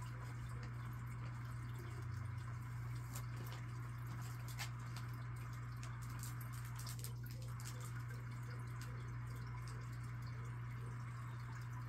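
Trail camera recording: a steady low electrical hum under even hiss, with a few faint scattered ticks or drips.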